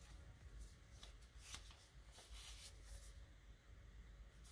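Faint rustling and scraping of a cardboard insert and sticker sheet being handled over a clear plastic packaging tray, in a few soft brushes.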